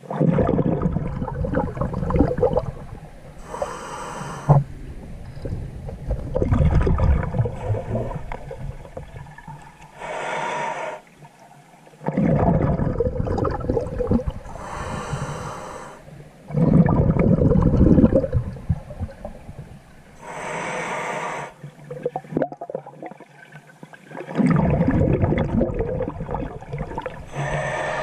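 A scuba diver breathing through a regulator underwater, about five breaths. Each breath has a short hissing inhale and a longer, louder rumbling burst of exhaled bubbles.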